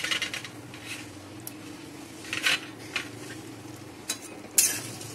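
Metal utensils clinking against an aluminium cooking pot: a few sharp, separate clinks, the loudest near the end, over a low steady hum.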